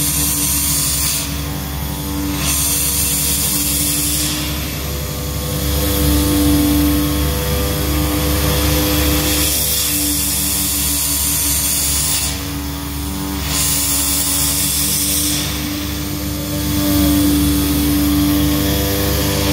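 CNC oscillating-knife cutter running as it cuts a rubber sheet: a continuous mechanical hum with several steady tones over a hiss. The hiss dips briefly every few seconds.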